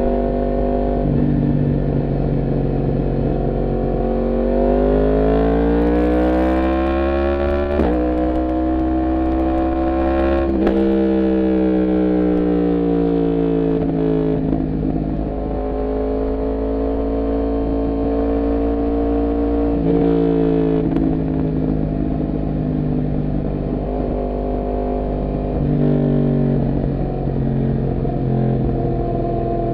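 Yamaha MT-10 motorcycle's crossplane inline-four engine under way: it climbs through the revs about four seconds in, changes gear near eight seconds, pulls up again, then eases off and slows. The revs step up again briefly about twenty seconds in and once more near the end.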